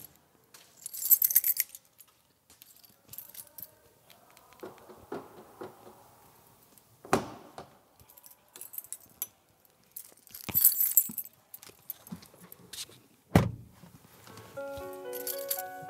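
Several short bursts of bright metallic jingling, broken by two sharp thumps, one about halfway and one near the end; a keyboard melody starts just before the end.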